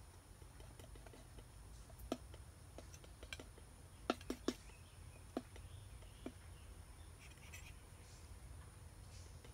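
A palette knife clicking and tapping against the palette while mixing oil paint: several faint sharp taps at irregular intervals, three in quick succession about four seconds in.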